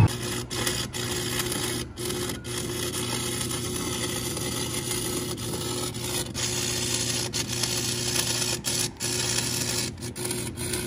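Electric arc welding on a steel wagon frame: a steady crackling sizzle over a low hum, with a few brief breaks where the arc stops, about two seconds in and again near the end.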